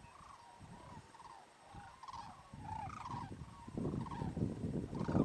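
A flock of sandhill cranes calling: many short, rolling, rattling bugle calls, overlapping and repeating throughout. A low rumbling noise builds under them near the end.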